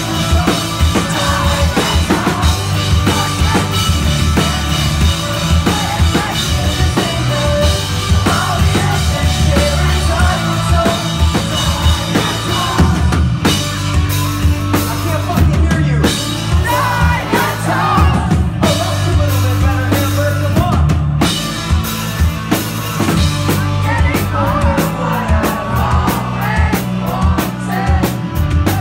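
A rock band playing a song live and loud, a full drum kit with bass drum and snare driving it.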